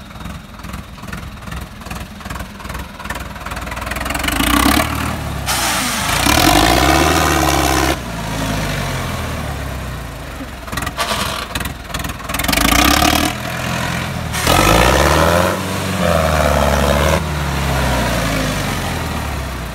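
Sonalika tractor's diesel engine running with a steady chug, then revved hard twice, the pitch climbing and falling each time, as the tractor is driven on a sandy track.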